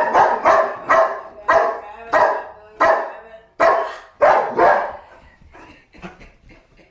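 German Shepherd dog barking repeatedly in loud, sharp barks, about ten in the first five seconds, then stopping.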